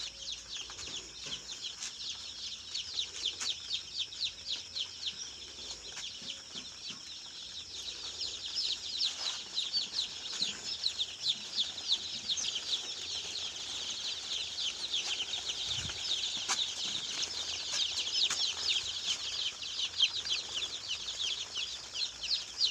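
Large flock of chickens calling: dense, overlapping high-pitched cheeps, growing louder about eight seconds in.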